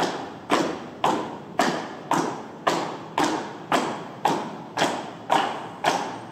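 Footsteps of heeled shoes on a hard floor, falling in step: a heavy thud about twice a second, evenly spaced, each ringing out in a short echo.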